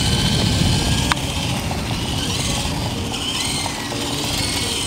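Small electric motor and rotor of a toy RC helicopter running as it sits on the pavement: a steady high whine whose pitch wavers slightly with the throttle, over a low rumble. A single sharp click comes about a second in.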